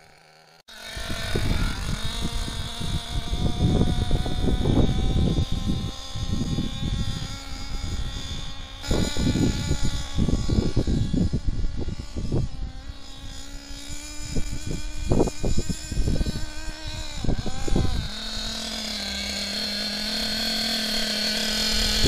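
Alpha Dragon nitro engine of an RC buggy running in on a rich mixture, its pitch rising and falling as the throttle is gently opened and eased off. About 18 seconds in it settles to a steady idle.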